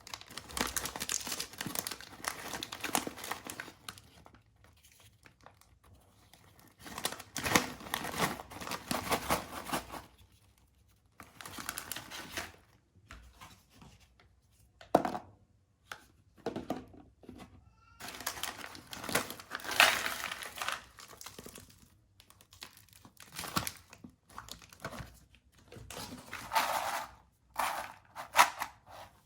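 Plastic snack packets crinkling and being torn open by hand, in irregular bursts separated by short pauses.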